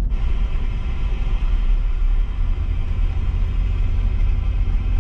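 Low, steady road and engine rumble inside the cab of a moving car, with a faint steady buzz over it.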